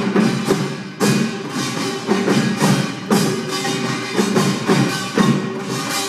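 Live Korean pungmul percussion music: drums and small gongs struck in a fast, driving rhythm, with strong accents about twice a second over ringing, sustained tones.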